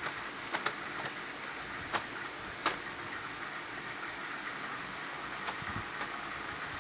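Steady background hiss with a few short clicks, four in the first three seconds and one more near the end.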